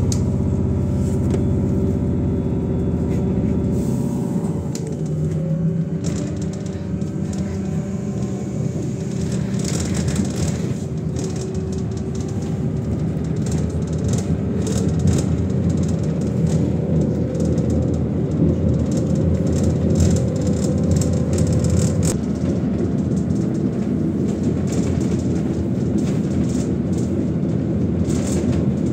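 Inside a moving battery trolleybus: electric traction drive whining in steady tones over the rumble of tyres on the road. A deep low hum stops about four seconds in.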